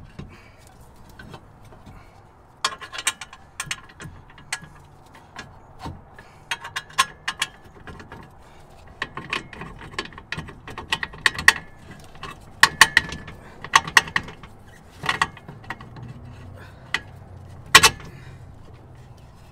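Sharp metal-on-metal clicks and clinks in short clusters, some ringing briefly, as a Camaro's cast rear spindle is worked onto the CV axle splines and the lower control arm bolt is fitted.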